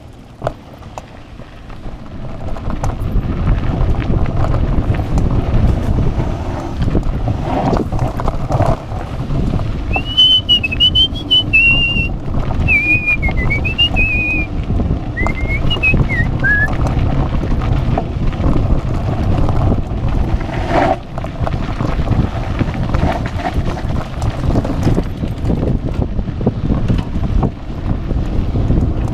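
Wind rushing over the microphone of a mountain bike's camera with the rumble of riding a dirt track, loud from about two seconds in. Partway through, a person whistles a short tune in three phrases.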